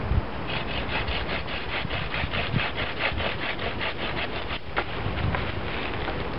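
Improvised bow saw, a thin saw blade sprung across a bent hazel stick, cutting through a stick of wood in quick back-and-forth strokes, about five a second. The strokes stop briefly about two-thirds through, then go on more faintly.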